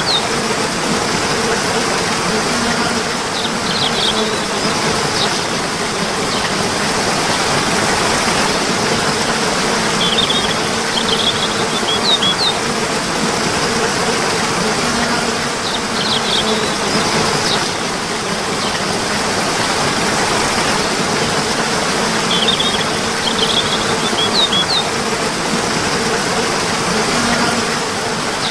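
Steady rushing water with short bursts of bird chirps every few seconds, under a faint steady hum.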